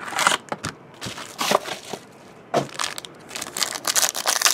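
Crinkling and crackling of a plastic-foil trading-card pack and its box packaging being handled and opened by hand, in irregular bursts that grow denser near the end.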